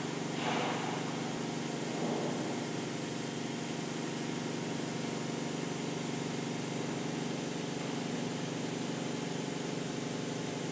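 Steady, even hum of running electric machinery, made of several low tones held together.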